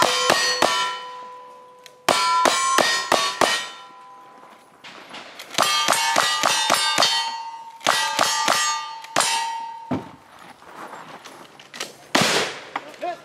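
A single-action revolver and then a lever-action rifle fired in fast strings at steel silhouette targets. Each shot is followed by the ringing clang of the struck plate. Near the end come two shots with no ring after them.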